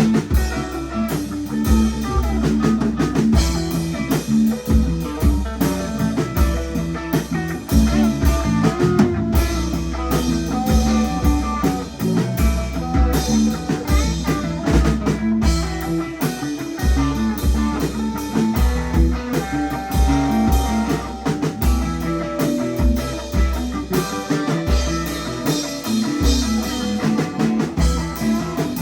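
Live rock band jamming: electric guitar, bass and drum kit playing together.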